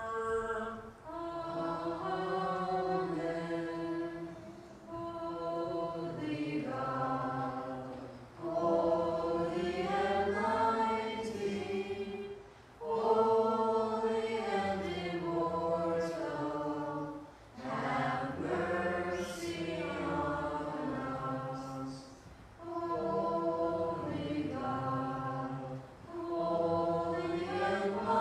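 Byzantine-rite liturgical chant: voices singing a series of phrases of a few seconds each, moving between held notes, with short breaks for breath between phrases.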